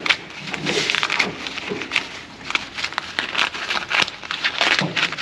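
Plastic split wire loom crackling and rustling in irregular bursts as it is pulled and worked off an old wiring harness.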